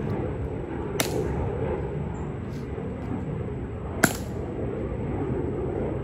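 Two sharp heel clicks from a Tomb Guard's metal-plated drill shoes, about three seconds apart, the second louder, over a steady outdoor background hum.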